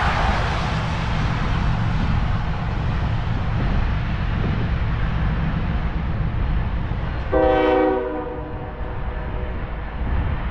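A diesel locomotive horn sounds one short blast about seven seconds in, over a steady low rumble. A hiss at the start fades away over the first couple of seconds.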